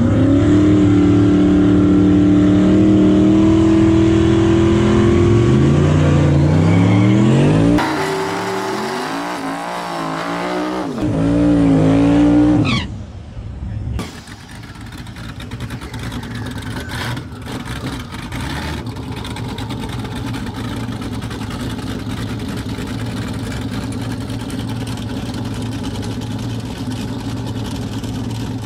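Drag car engine revving hard at the start line, its pitch climbing and then held high for several seconds. It drops into a wavering rev before a sharp rising sweep. After that comes a lower, steadier sound of engines and crowd.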